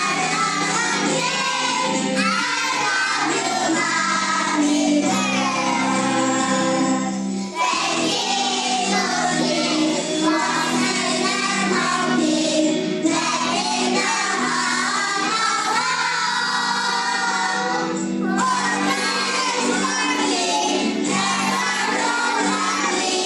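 A song with singing voices, children's among them, over steady instrumental accompaniment.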